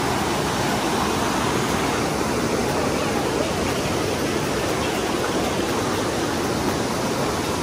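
Steady rush of hot-spring water pouring down the Saturnia thermal cascades.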